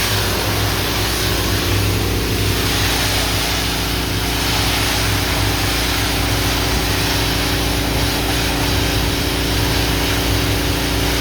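Kohler gas engine of a hot-water pressure washer running steadily at a constant speed, with a steady hiss over it.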